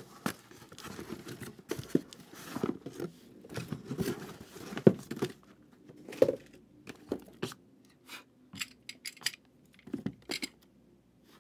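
Cardboard and plastic wrapping being handled and torn as a sealed Panini trading card box is taken out of its case and opened: rustling, scraping and light knocks, busier in the first half and then sparse clicks.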